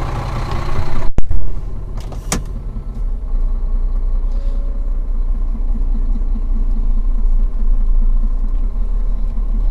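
Scania truck's diesel engine running, heard from inside the cab. About a second in comes one sharp, loud knock as the cab door is shut, and a lighter click a second later.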